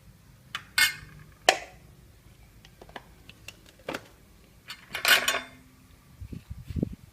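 Kitchen utensils knocking and clinking against dishes and cookware: a handful of sharp, separate clatters, the loudest and longest about five seconds in, then a few soft low thumps near the end.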